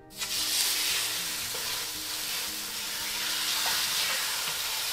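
Beef steaks searing in hot rendered beef fat, sizzling steadily; the sizzle starts suddenly just as the meat goes into the pot.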